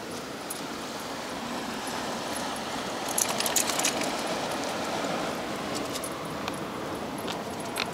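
Steady wash of sea water surging among tide-pool rocks, with a cluster of sharp small clicks about three seconds in and another click near the end.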